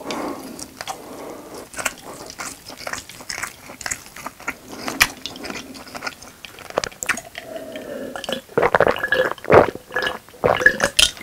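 Close-miked mouth sounds: wet chewing clicks, then louder gulping and swallowing of a drink from a glass mug in the last few seconds.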